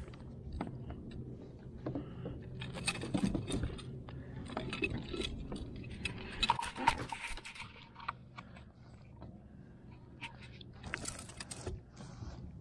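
Fishing gear being handled on a kayak: scattered light clinks, rattles and scrapes, with louder clusters of clatter a few seconds in, around the middle and again near the end, over a low steady hum.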